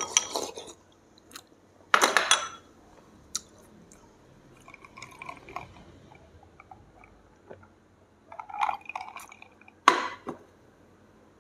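A person eating and drinking: slurping chicken congee from a rice bowl with chopsticks, then sipping beer from a glass mug. There are two loud knocks, about two seconds in and near the end.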